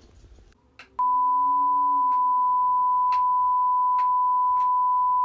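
A single long, steady electronic beep on one pitch. It starts about a second in and cuts off abruptly just over four seconds later.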